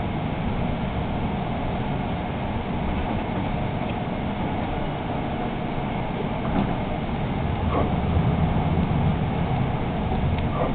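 Steady running rumble inside a moving Hudson-Bergen Light Rail car, a Kinki Sharyo light rail vehicle, its wheels rolling on the rails. It grows a little louder about eight seconds in, and two short faint falling squeals come near the end.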